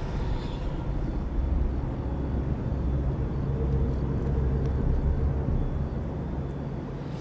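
Steady low rumble of city street ambience with distant traffic, slowly fading toward the end.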